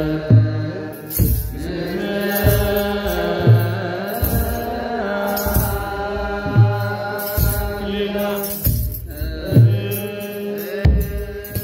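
Eritrean Orthodox wereb: a group of clergy chanting together in long held notes, with silver sistrums shaken in rhythm and a low beat about once a second.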